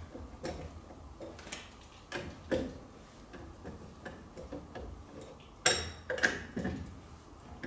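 Scattered metallic clicks and knocks of hand tools being handled on a car, irregular rather than a steady rhythm, with one sharper metal clink about five and a half seconds in; a low steady hum underneath.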